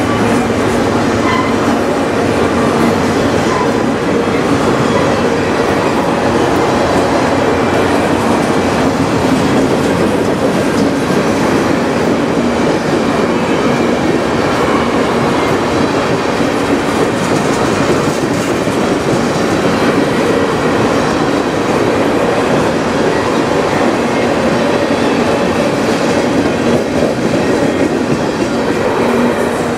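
Freight cars of a passing train, covered hoppers and tank cars, rolling by close at hand, their steel wheels running steadily over the rails at an even loudness.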